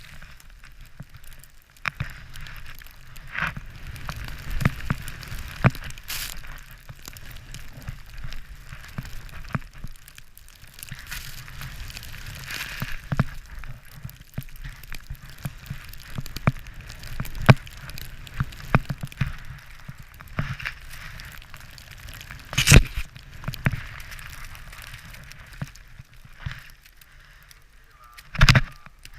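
Snow hissing and crunching under a rider sliding down through the trees, with scattered knocks and clatter and two louder thumps near the end, over low wind buffeting the microphone.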